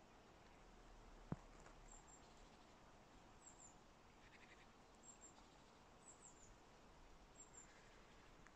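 Near silence, with a small bird's thin, very high call repeating about every second and a half, and a single faint click about a second in.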